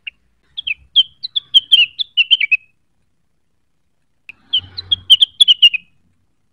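A rengganis songbird singing in two quick bursts of sharp, high chirping notes: one near the start lasting about two seconds, and a shorter one after a pause of about a second and a half. This is the rapid twittering ("neritik") song of a bird in full voice, used as a lure call to provoke other birds into singing.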